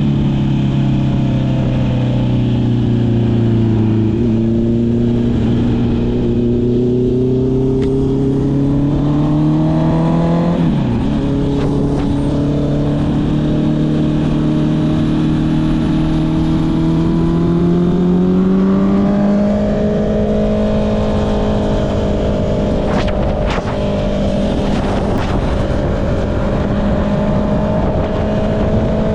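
Honda CB650R's inline-four engine running through an Akrapovic exhaust while riding, over wind noise. The engine note climbs, drops sharply about ten seconds in at a gear change, then climbs slowly again. It steps up a little before halfway through and then holds nearly steady.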